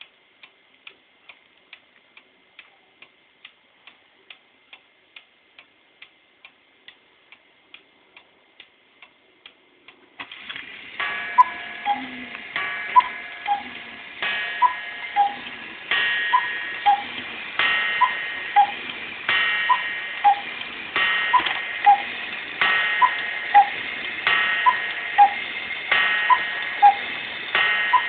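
An old mechanical cuckoo clock ticks steadily at about two to three ticks a second. About ten seconds in it starts calling the hour: the works set up a steady whirring, and a two-note cuckoo call, high then low, repeats about every one and a half to two seconds.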